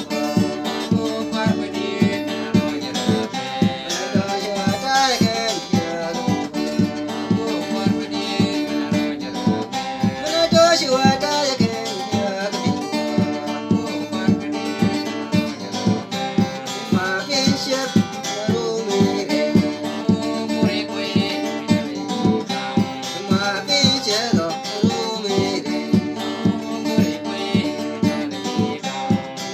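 A song with strummed acoustic guitar keeping a steady rhythm, and a voice singing in places.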